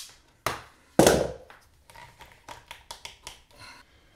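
Self-adjusting wire strippers snapping shut and clicking as they cut the outer sheath off twin and earth cable, with the loudest snap about a second in, followed by lighter clicks and rustling as the cables are handled.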